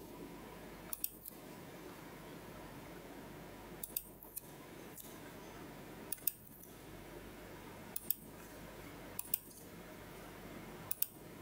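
Sharp computer-mouse clicks, each a quick pair of ticks, coming about every one to two seconds over a faint steady hiss.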